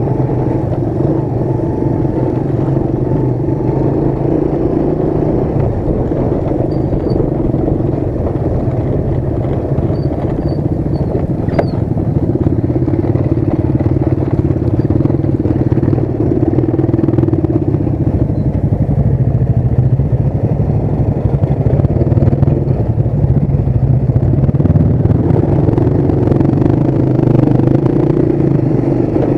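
Motorcycle engine running steadily while riding over a rough dirt track, heard close up from the bike itself, getting a little louder in the second half. There is one sharp click about eleven seconds in.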